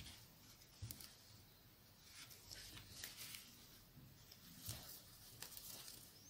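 Near silence, with a few faint, irregular soft clicks and rustles of a metal crochet hook working yarn and the crocheted piece being handled.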